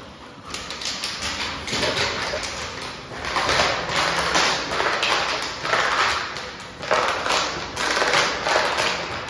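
Plastic water bottle crackling and crinkling in quick, irregular clicks as a black Labrador chews and noses it.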